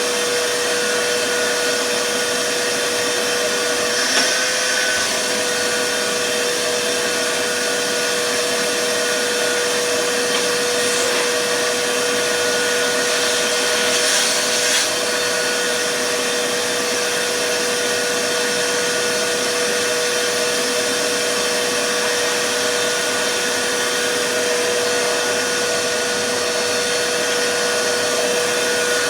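Vacuum cleaner running steadily: an even rush of air under a constant motor whine, with a couple of brief small knocks about four seconds in and again about halfway through.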